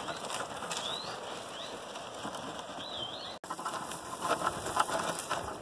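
Mules dragging timber boards lashed to their pack saddles down a dirt mountain trail, over a steady rustling noise. Small birds give a few short rising chirps in the first three seconds. From about four seconds in, a run of knocks and scrapes from hooves and dragged wood on the ground.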